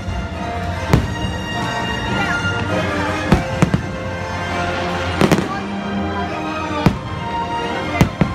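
Aerial firework shells bursting in about nine sharp bangs, several in quick pairs, over continuous loud orchestral music accompanying the display.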